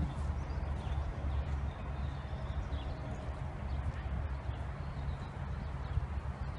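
A horse cantering on a sand arena, its hoofbeats dull and muffled under a steady low rumble.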